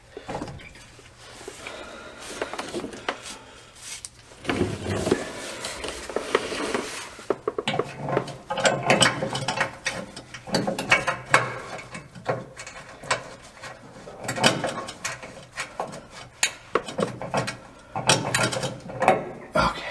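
Hand ratchet clicking in quick runs, with metal clinks, as the drive shaft is bolted to the transfer case yoke.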